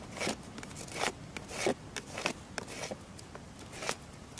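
A thin stick pulled against a knife blade that is stabbed upright into a log, shaving off wood in a quick series of short scraping strokes.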